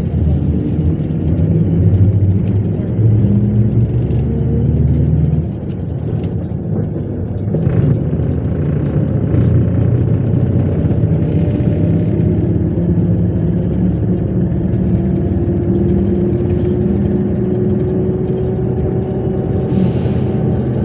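MAZ 103 city bus's diesel engine and drivetrain heard from inside the passenger cabin while under way. The engine note drops about five seconds in, then a slowly rising whine follows as the bus gathers speed.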